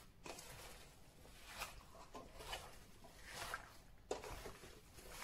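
A hand mixing chunks of raw neck meat with sliced onion, tomato and dry spices in a stainless steel pot: faint, irregular wet rustles, about one a second.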